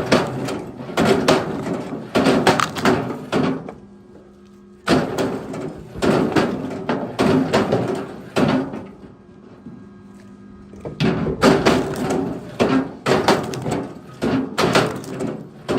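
Wooden knocking and clattering of firewood logs being handled, in clusters of thuds several a second with two short lulls. A faint steady hum sits under the lulls.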